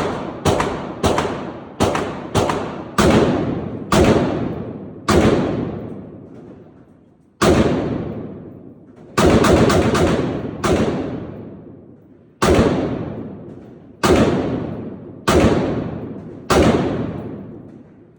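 Firearm shots, about sixteen at uneven intervals, some in quick pairs and others a second or two apart, each ringing out in a long echo.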